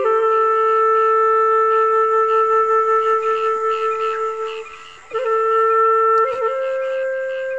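Background music: a solo flute-like wind instrument holding long, steady notes, with a brief break about five seconds in before it resumes on a slightly higher note.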